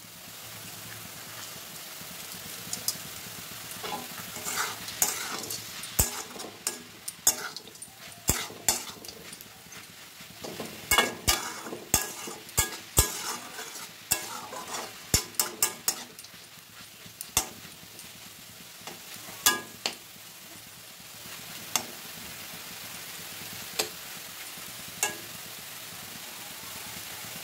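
Steel spatula stirring leafy greens in a stainless-steel wok over a steady frying sizzle. The spatula clinks and scrapes against the pan in quick, irregular strokes through the middle, then knocks only now and then near the end.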